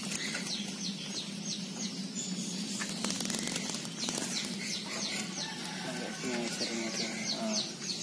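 Small bird giving quick series of short, high, falling chirps, about four a second, in three bursts, over a steady low hum.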